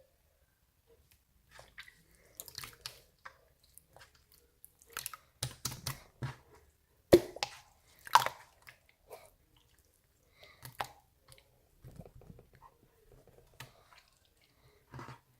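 Close-up chewing: irregular crunches and wet clicks with short silent gaps, the loudest about seven and eight seconds in.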